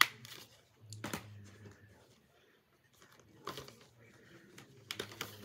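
Plastic movie disc cases being handled: a few scattered clicks and short rustles, two of them close together near the end, over a faint steady low hum.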